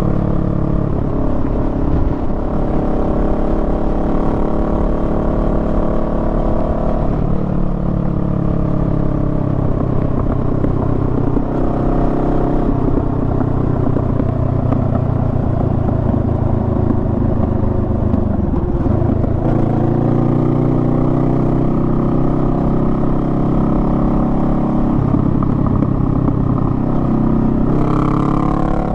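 Honda Rebel 500's parallel-twin engine running under way on the road. Its pitch shifts with speed: it drops around seven seconds, slides down and picks back up around nineteen seconds, and climbs again near the end.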